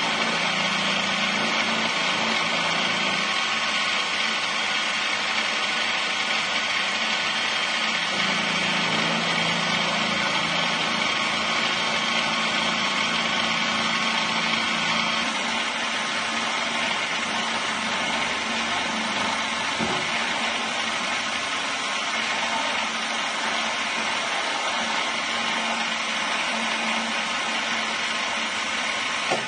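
Drilling machine running steadily as a carbide drill bit is fed slowly, by the fine feed, into the hardened steel of an old combination padlock.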